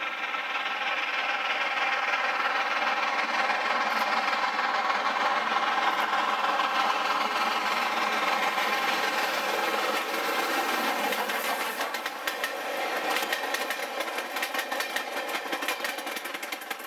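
Steam locomotive working a passenger train past at close range, its exhaust loud and steady. From about two-thirds of the way in, a rapid rhythmic clatter joins it as the coaches' wheels run over the rail joints.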